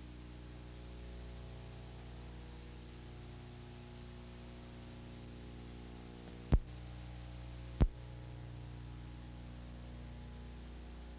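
Steady electrical mains hum with faint hiss on the otherwise empty soundtrack of an old videotape, broken by two sharp clicks a little over a second apart, a bit past halfway.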